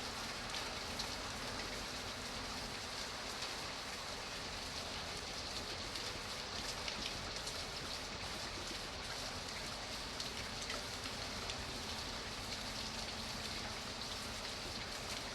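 Steady rain, with many small individual drops pattering on a surface over an even hiss.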